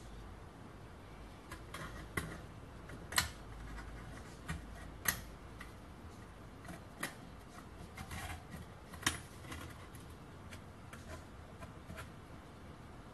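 Irregular light clicks and taps of small metal parts and a hand tool being handled while a brass-and-steel model steam engine is put together by hand. The sharpest clicks come about three, five and nine seconds in.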